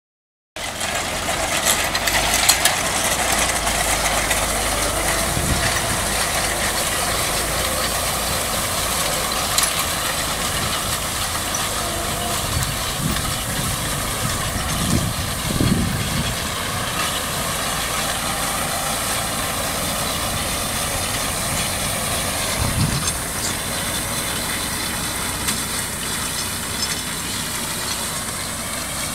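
IMT 577 tractor's diesel engine running steadily while it drives a rotary hay tedder turning cut hay. It grows slightly fainter near the end as the tractor pulls away.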